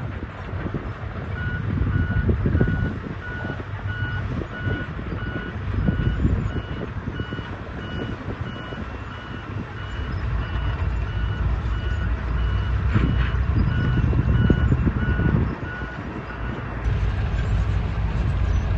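Backup alarm on heavy construction machinery beeping in a steady string, about two to three beeps a second, over the low rumble of a diesel engine that swells and eases as the machine works. The beeping starts shortly in and stops near the end.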